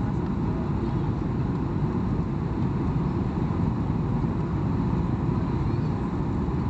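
Steady drone of an airliner's engines and airflow heard inside the passenger cabin during the approach to landing, a deep even rumble with no change in level.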